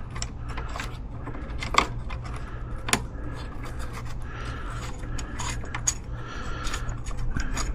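Small metal hardware (bolts, nuts and steel brackets) clinking and rattling as it is handled, with scattered sharp clicks, the two loudest about two and three seconds in, over a steady low hum.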